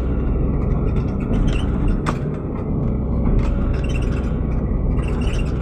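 Excavator diesel engine running steadily under working load as the machine pushes brush into a ditch, with a brief sharp click about two seconds in.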